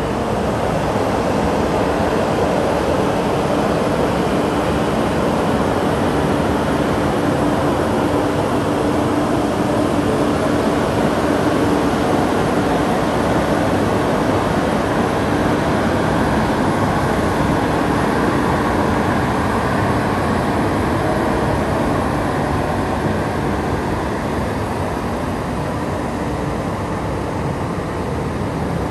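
ZCC1100H hydraulic crawler crane's diesel engine idling, a steady running noise with a faint hum.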